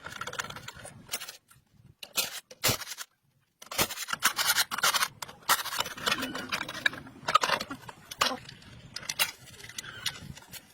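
Irregular strokes of hand scraping and rubbing on a hard surface, with a brief silent gap about three seconds in.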